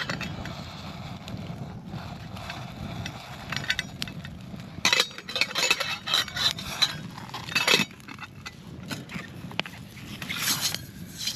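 Stainless steel camping pot and its folding wire handles clinking and clattering as it is handled on the fire, with a cluster of sharp clinks from about five to eight seconds in and another brief rattle near the end.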